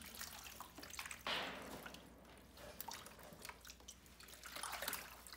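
Water poured from a container into the sloped sheet-metal droppings gutter under a rabbit cage, trickling and dripping faintly as it washes droppings and hay along the channel.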